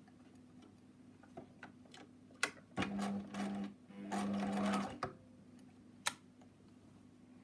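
Bernina 1008 sewing machine stitching in short runs: two brief bursts about three seconds in, then a longer run of about a second that stops near five seconds. A sharp click comes just before the first burst and another about a second after the last.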